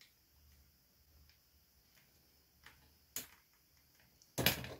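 Desoldering a swollen electrolytic capacitor from a monitor's power-supply board with a soldering iron: a few faint ticks from the iron and the part, then a louder click near the end as the capacitor comes free of its melted solder.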